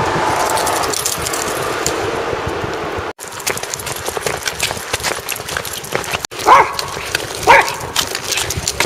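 A small dog barks twice, about a second apart, in the second half. Before that there is a steady rushing noise, then scattered light ticks.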